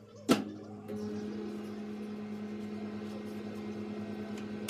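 A click, then a microwave oven starts running about a second in with a steady electrical hum and fan noise.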